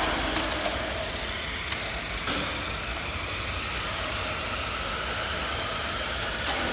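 Small electric motors of 1/16-scale Jada toy RC cars whirring steadily as the cars drive.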